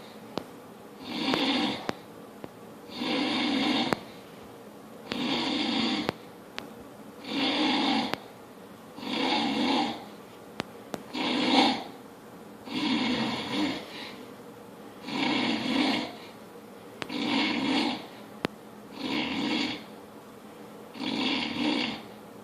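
A man snoring in a steady rhythm, one snore about every two seconds, each lasting about a second.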